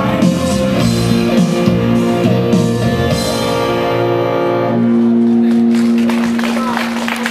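Live rock band's closing bars led by electric guitar, ending on a held chord that rings out from about two-thirds of the way through.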